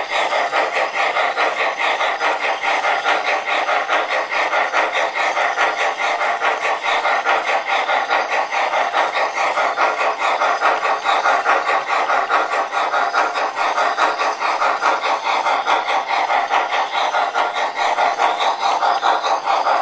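MTH O-gauge Climax model steam locomotive running steadily with its onboard sound system giving a rapid, even steam chuff, mixed with its wheels rolling on the three-rail track.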